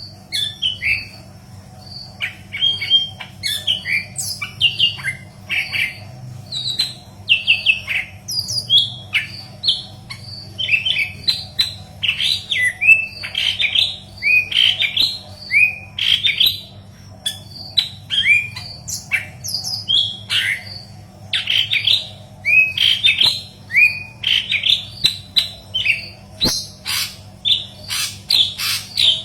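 A leafbird (murai daun kepala kuning) singing a fast, unbroken string of varied chirps and sweeping whistles. A low steady hum runs underneath.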